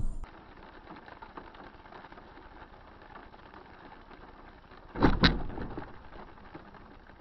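Faint steady noise, then about five seconds in two loud bangs in quick succession that trail off over about a second: a vehicle collision.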